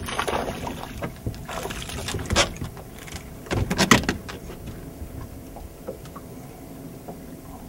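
Small fish being reeled in and swung out of the water on a spinning rod: splashing and handling noise in a few short bursts, the loudest about four seconds in as the fish is lifted, then a quieter stretch with a faint steady hum.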